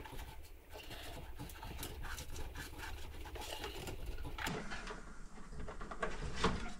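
Light scratching and scattered small clicks of hands working a little rubber grommet onto the metal axle stud of a vintage swamp cooler screen.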